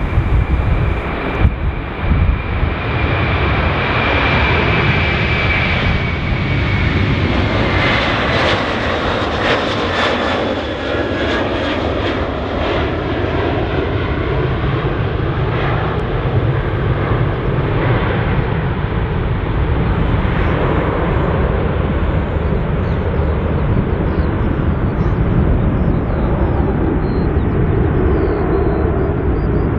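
Airbus A330's twin jet engines at takeoff power as the airliner rolls, lifts off and climbs away: a loud, steady rumble with a high whine that falls in pitch over the first several seconds, and some sharp crackles about eight to twelve seconds in.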